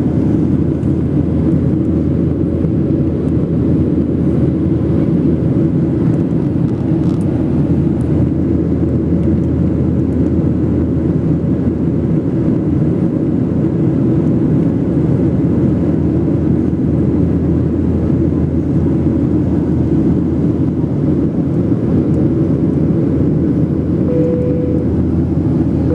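Steady roar of a jet airliner's engines and airflow heard inside the passenger cabin in cruise-like flight, deep and unchanging. A short single tone sounds briefly near the end.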